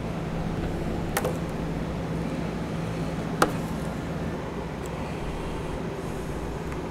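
Steady low hum of background noise with two light, sharp clicks, one about a second in and a louder one about three and a half seconds in, from hands working a utility knife on the taillight wiring. The hum's low steady tone drops out a little past four seconds in.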